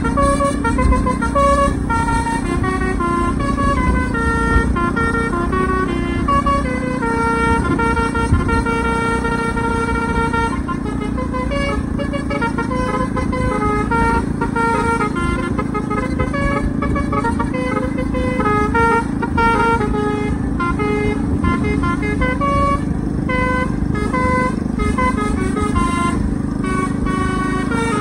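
Bus telolet air horns playing a melody of held notes that step up and down in pitch, one tune running into the next, over the steady low rumble of the bus and road.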